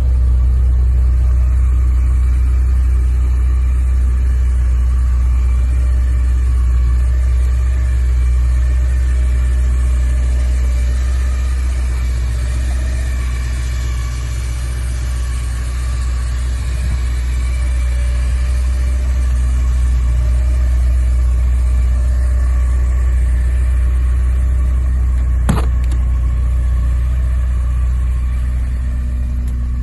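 Porsche 944's rebuilt four-cylinder engine running steadily with a deep low rumble, no revving. There is a single sharp click near the end.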